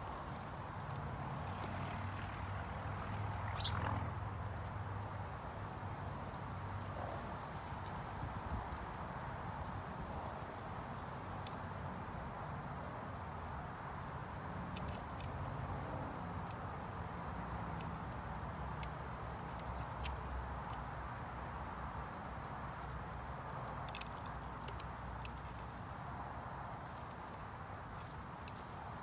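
Insects chirping: a steady, high, rapidly pulsing trill that holds one pitch. Near the end comes a cluster of sharp high clicks, louder than the chirping.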